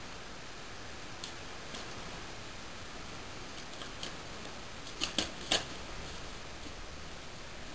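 Faint clicks and crackles of a cardboard box being handled and opened by hand, with three sharper clicks in quick succession about five seconds in, over a steady low hiss.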